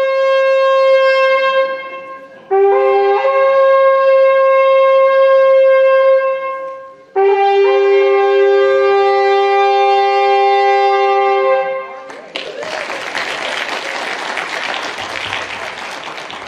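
Two shofars blown together in three long, steady blasts, the two horns at different pitches, each blast lasting several seconds. The horns stop about twelve seconds in, and a congregation's applause follows.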